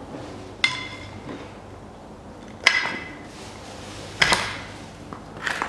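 Steel pliers and a screwdriver clinking against a steering knuckle as the wheel-bearing circlip is worked out of its groove: four sharp metallic clinks with a short ring, about one every second and a half.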